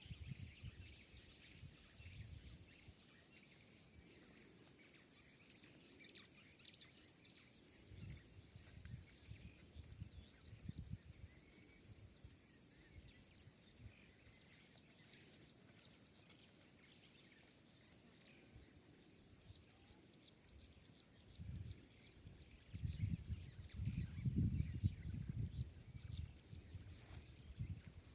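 Steady high-pitched insect drone with many short bird chirps over it. Near the end come several louder low rumbles and thumps.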